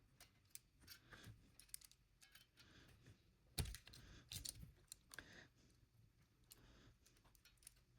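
Faint scattered clicks and light taps of hands working wires and small tools, with one sharper knock about three and a half seconds in.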